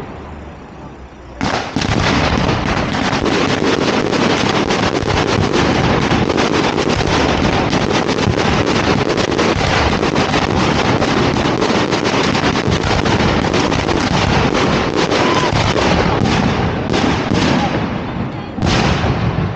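Fireworks display: about a second and a half in, a dense, continuous barrage of aerial shell bursts and crackling begins. It runs for about fifteen seconds, then thins to a few separate bangs near the end.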